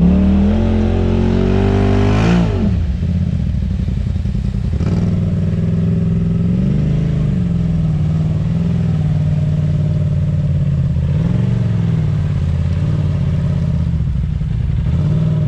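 Side-by-side UTV engine running under way. Its pitch climbs over the first two seconds, drops sharply as the throttle comes off, then rises and eases again twice more.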